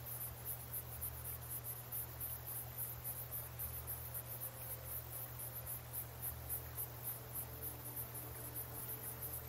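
Crickets chirping in an even, fast pulse of about five chirps a second, with a low steady hum underneath: a nature-ambience bed.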